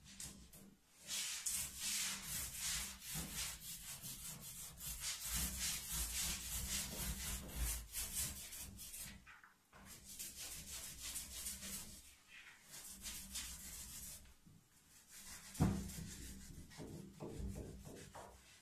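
Quick rubbing strokes scrubbing excess oil ink off a gum oil print, in spells with short pauses, and one sharp knock near the end.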